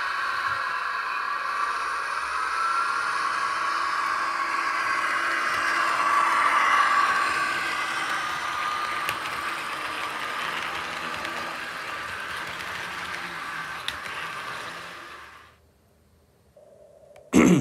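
Märklin model trains running on the layout's track, a steady mechanical run that grows louder about six to seven seconds in as a rake of passenger coaches passes close, then slowly fades. It cuts off about fifteen seconds in, and a short, loud knock comes right at the end.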